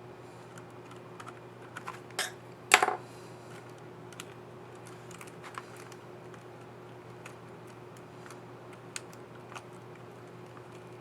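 Small plastic clicks from a laptop keycap and its scissor mechanism being handled and fitted on an HP 15-DY keyboard. The clicks are scattered, with two louder ones a couple of seconds in, over a faint steady hum.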